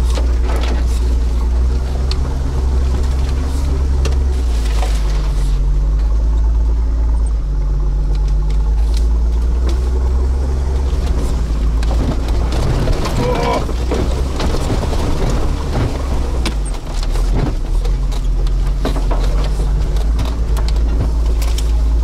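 Toyota Land Cruiser 80 heard from inside the cabin while driving slowly over a rough forest track: a steady low engine drone whose pitch eases up and down with the throttle. Scattered knocks and rattles from the body and suspension are thickest around the middle.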